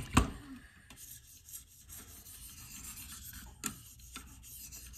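Diamond sharpening stone of a KME guided sharpener stroking along an AUS-10 steel knife edge, a steady scraping rasp, with light deburring strokes to cut off the burr. A sharp click sounds just after the start and another about two-thirds of the way in.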